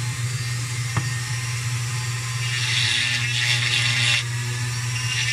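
Handheld rotary tool running steadily with a fine carving bit, engraving into a piece of wood; from about two and a half to four seconds in, a louder, higher grinding hiss as the bit bites into the wood.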